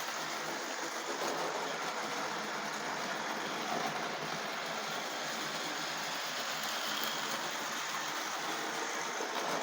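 Repaired Tri-ang model railway locomotive running on its track on test: a steady whirr of its small electric motor and the rattle of its wheels on the rails.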